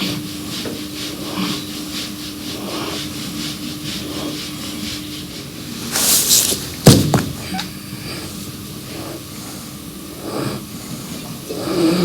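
Sleeping draft-horse foal snoring, breath after breath in a slow rhythm. About six seconds in comes one loud, sharp breath, followed at once by a sharp knock.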